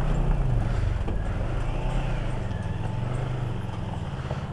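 Motorcycle engine running on a rough mountain road, its low note rising and falling gently with the throttle over a steady rumble.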